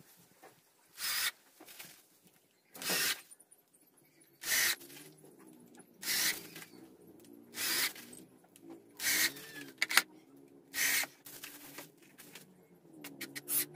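Cordless drill boring a row of holes through thin plywood. It runs in about seven short bursts, one every second and a half or so, each hole drilled in under a second.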